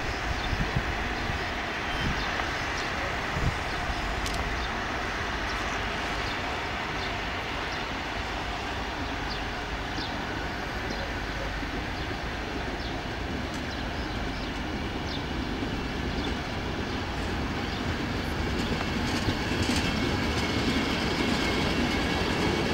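Passenger coaches of an Italian night train rolling along a station platform, with a steady rumble of wheels on rail and occasional clicks. The sound grows louder near the end.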